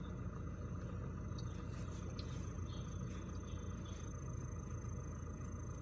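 A steady low rumble with a faint, thin high whine over it.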